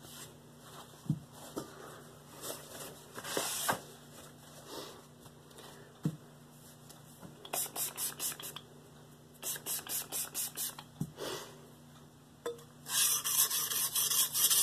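A Mercer nakiri's steel blade being stroked back and forth on a 320-grit Shapton Pro whetstone, a gritty rasp with each pass, to raise a burr on the edge. Scattered single strokes give way to runs of quick strokes, about six a second, and the fastest, loudest run starts near the end.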